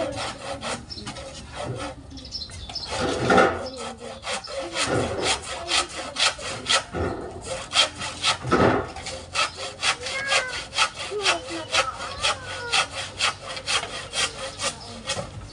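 Handsaw cutting through wood in quick, regular strokes, about three a second, with a few heavier strokes in the first few seconds.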